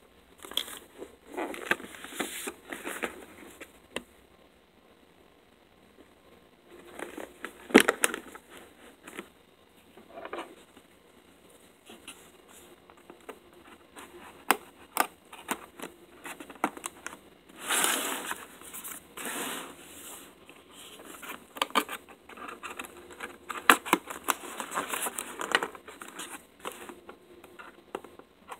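Cardboard product box being handled on a table and slit open with a hobby knife: irregular taps, scrapes and rustles, with a sharp knock about eight seconds in and a longer burst of scraping and tearing about two-thirds of the way through.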